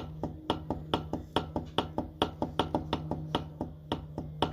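160 cc motorcycle engine running with a steady hum and a regular metallic clacking, about four to five knocks a second. The clacking comes from play the owner points out in the engine, which he sets out to remove by replacing a bolt.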